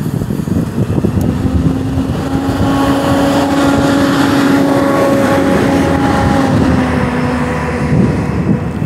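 A motor vehicle's engine humming at a steady pitch for several seconds, dipping in pitch and fading near the end, over a constant low rumble of noise.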